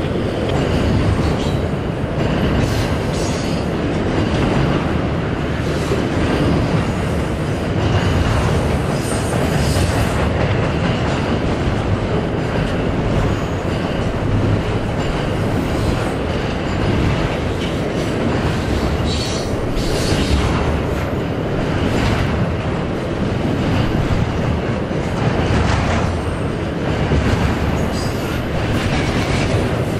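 A long intermodal freight train of stacked containers rolling past: a steady rumble of steel wheels on rail, with clicks here and there.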